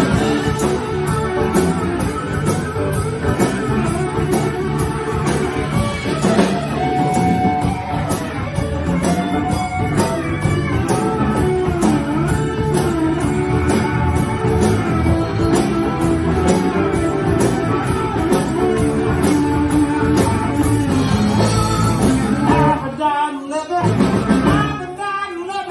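Live blues-rock band playing an instrumental stretch: electric guitar lead with bending notes over bass, drums and rhythm guitar. Near the end the band cuts out twice in short breaks.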